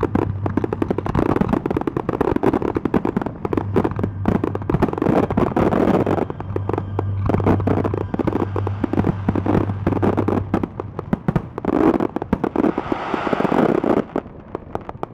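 Fireworks display: a dense run of rapid bangs and crackles with hardly a gap, thinning out and falling quieter near the end.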